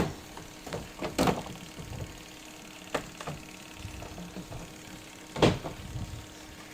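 Knocks and clatters of the washing machine's plastic casing and parts being handled as its top cover is taken apart: a few separate sharp knocks, the loudest about five and a half seconds in, over a faint steady hum.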